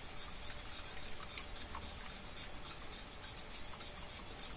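Wire whisk beating raw eggs in a bowl: a steady, quick scraping and swishing as the wires strike the bowl.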